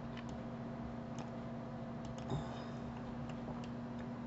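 A few faint, scattered clicks of a computer mouse and its scroll wheel, over a steady low hum.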